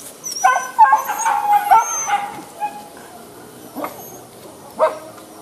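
Hunting dogs whining and yipping while held back on the lead, eager to be let loose on the chase. The calls are dense for the first couple of seconds, then thin out to two single yelps near the end.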